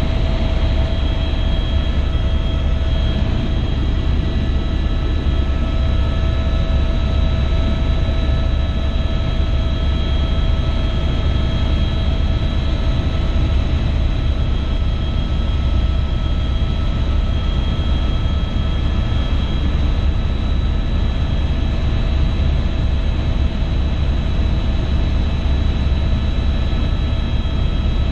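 Helicopter in steady forward flight, heard from inside the cabin: a constant low rotor and engine drone with a steady turbine whine above it.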